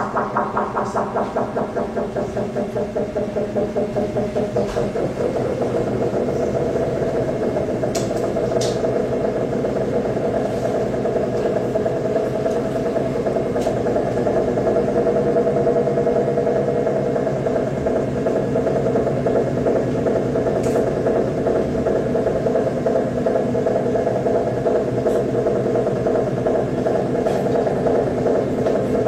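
Live electronic noise music: a dense, rapidly pulsing drone centred in the middle range, machine-like. A brighter pulsing layer above it fades away in the first few seconds, leaving the steady throb.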